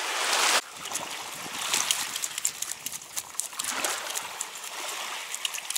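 Shallow seawater washing and trickling along a coral-rubble beach, with a short loud rush of noise in the first half second that cuts off suddenly, then scattered small clicks and crunches.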